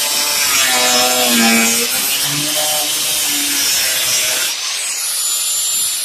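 Power cutting tool cutting through rusted sheet-metal body panel, its pitch wavering as it bogs under load. About four and a half seconds in it comes off the metal and runs free with a steady high whine.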